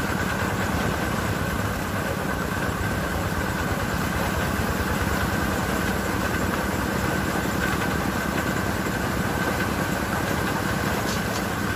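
An engine running steadily nearby, with a low rumble and a constant high hum.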